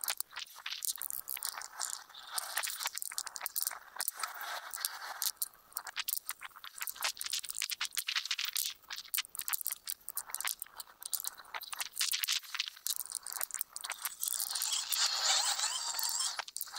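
A hand-held abrasive block scraped back and forth over a steel hammer head: rapid, irregular rasping strokes of stone on metal, with a few short pauses.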